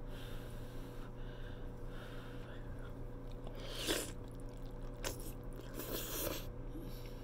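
Mouth-eating sounds of a big bite of saucy stuffed cabbage taken from chopsticks: a loud wet bite about four seconds in, followed by shorter bursts of chewing and smacking near five and six seconds, over a faint steady hum.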